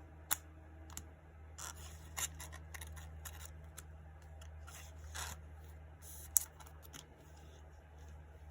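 Scattered short scrapes, rustles and clicks of items being handled by hand, with a sharp click about six seconds in, over a steady low hum from a PlayStation 4 running in the room.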